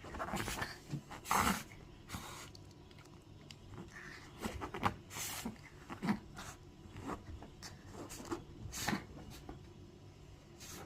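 Chihuahua sneezing again and again, a string of short, sharp sneezes. The owner puts the sneezing down to the smell of coconut shampoo after a bath.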